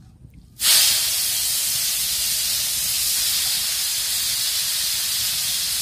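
Shredded vegetables dropped into hot mustard-coloured oil in an iron kadai: a loud sizzle bursts out about half a second in, then keeps up as a steady frying hiss.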